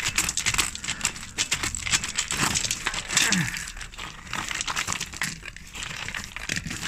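Close rustling and scraping handling noise with many small clicks and crackles, and two short falling low sounds about two and a half and three and a half seconds in.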